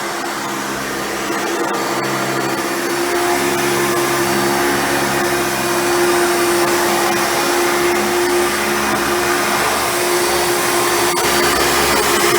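Hoover Runabout vacuum cleaner running steadily, a motor hum with a strong steady tone over a broad rushing hiss, growing slightly louder a second in and again about halfway through.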